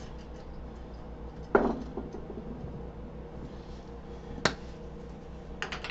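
A few sharp clicks and a soft knock over a steady low hum: one knock about a second and a half in, a single sharp click a few seconds later, and a quick run of clicks near the end.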